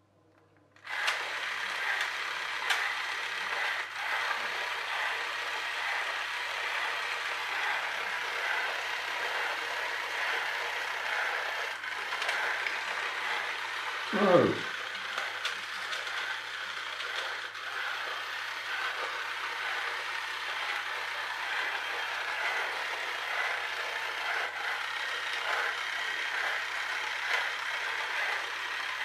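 Battery-powered toy train running: its small electric motor and plastic gear train whir and ratchet continuously as a split gear slips in and out of mesh. It starts about a second in, and about halfway through there is one short falling tone, the loudest moment.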